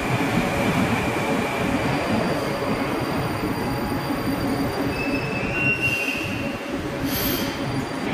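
Moscow Metro train running at the platform, a steady loud rumble of wheels and motors echoing in the underground station, with a brief high wheel squeal about six seconds in.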